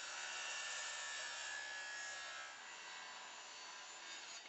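Handheld circular saw cutting a sheet of MDF: a steady whir that eases off toward the end.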